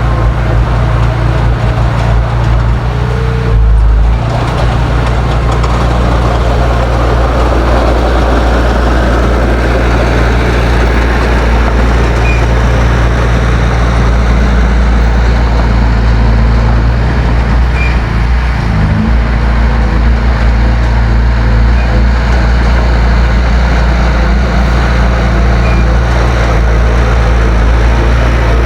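Heavy diesel engine of earthmoving machinery running steadily and loudly. The engine note shifts briefly about four seconds in and again about nineteen seconds in.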